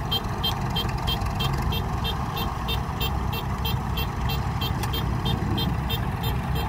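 A machine's warning buzzer beeps rapidly and evenly, about three beeps a second, over the steady running of a diesel engine. It is the alarm on the Kubota combine harvester.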